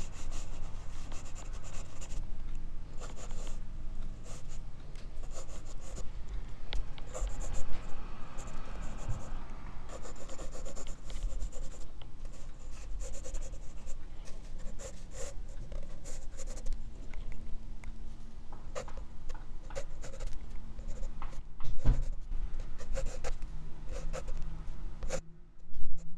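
Graphite pencil scratching and shading on paper in quick, irregular strokes, picked up close by a clip-on microphone on the drawing wrist. A few louder bumps come along the way.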